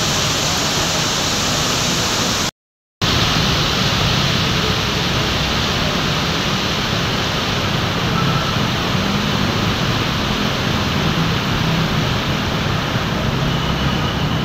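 Heavy tropical downpour making a steady, loud hiss, with the low rumble of cars and motorcycles driving through the wet road beneath it. The sound cuts out completely for about half a second roughly two and a half seconds in.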